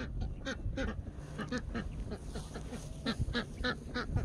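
A flock of ducks quacking, a rapid run of short calls several times a second, over low wind noise.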